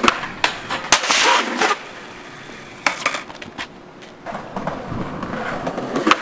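Skateboard wheels rolling on asphalt, with several sharp clacks and knocks of the board and the skater's feet. The rolling rises again over the last couple of seconds.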